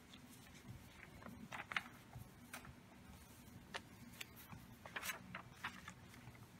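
Faint scattered rustles and light clicks of paper being handled, over a low steady hum.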